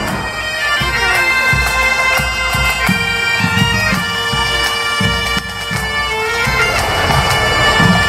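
Asturian bagpipes (gaitas) playing a melody over their steady drone, with drum beats keeping time.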